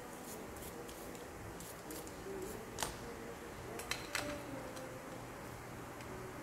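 Small plastic push-button switch parts handled by hand: light scraping, then a few sharp clicks about three and four seconds in as the parts are fitted to a panel.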